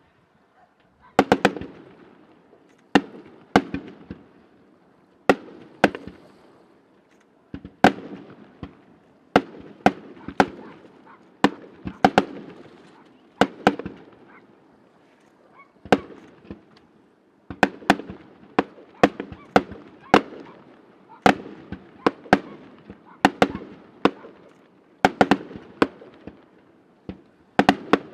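Fireworks display: aerial shells bursting in a long run of sharp bangs, often in twos and threes, one cluster every second or two after a brief lull at the start. Each bang trails off in a fading echo.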